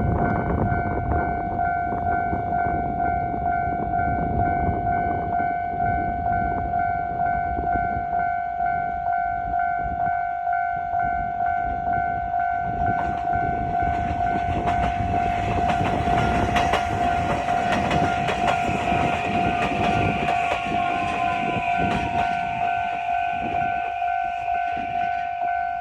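Japanese railway level-crossing alarm ringing its electronic bell tone at about two strokes a second. From about halfway in, a train runs through the crossing, its rumble and wheel noise rising and then fading. A falling whine is heard near the end as it passes.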